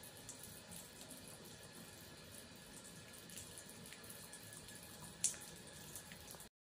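Faint, steady running of a thin stream of water from a bathroom tap into a sink, which a cat is drinking from, with light ticks throughout. A sharper click comes about five seconds in, and the sound cuts off suddenly just before the end.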